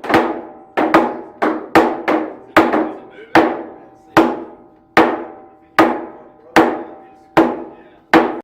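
Hard blows on an oak whiskey barrel, struck to knock its bung loose: sharp knocks at a steady pace of a little more than one a second, each ringing briefly with the barrel's hollow tone. The bung is stubborn, so the striking goes on and on.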